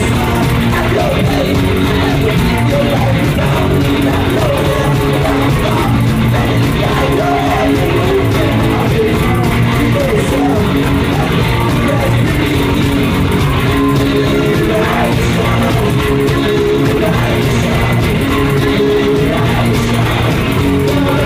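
Live rock music played loudly by two guitars, with low bass notes under steady strummed and picked lines.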